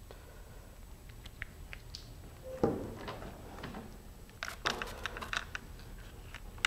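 Handling sounds of an electric hand drill as a 1/4-inch bit is fitted and its chuck is tightened: scattered light clicks, a knock about two and a half seconds in, and a quick run of clicks and rattles about a second later. The drill is not running.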